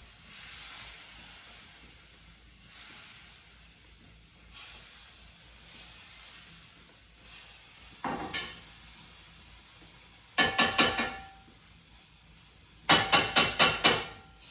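Butter melting in a hot frying pan with a faint, uneven sizzle. Near the end come two loud bursts of quick strokes, about five a second, as the butter is worked around the pan.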